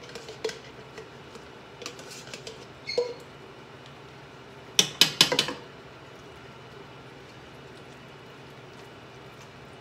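Cooking utensils knocking against a skillet of spaghetti as cream is stirred in: a few light clicks, then a quick run of sharp clatters about five seconds in, over a steady low hum.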